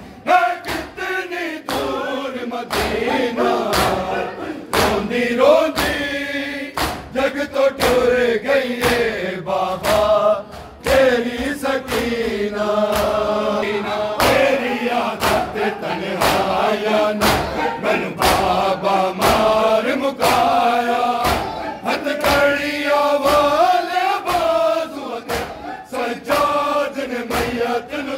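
Men's voices chanting a Punjabi noha lament for Bibi Sakina, over a steady beat of sharp slaps from mourners beating their chests in matam.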